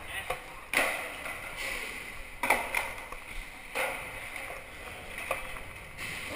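Skateboard wheels rolling on concrete, with a few sharp clacks of the board striking the ground.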